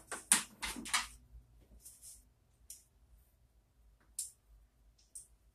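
A quick run of hard clicks and clatter from small plastic gaming pieces on the craps table during the first second, then a few faint ticks.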